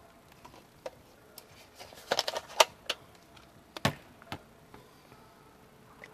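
Hard clear plastic prize capsules clacking and knocking against each other and the claw machine's prize chute as they are taken out by hand: scattered sharp clicks, a quick run of them about two seconds in and a louder knock near four seconds.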